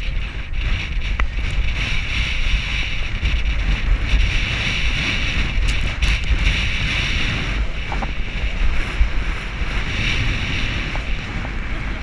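Loud, steady wind noise buffeting a GoPro Hero 4's microphone from a galloping horse, a continuous rushing with a heavy low rumble, with an odd faint click now and then.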